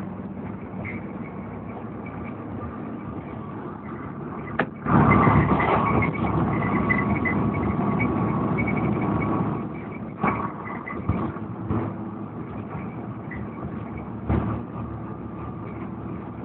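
Volvo B7TL double-decker bus on the move, heard from inside the passenger saloon: steady engine and road noise. It gets louder from about five to nine seconds in, with a sharp click just before, and a few short knocks and rattles come later.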